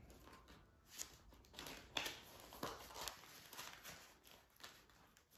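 Paper bills and a clear plastic pouch being handled: faint rustling and crinkling, with a few light clicks, the sharpest about one and two seconds in.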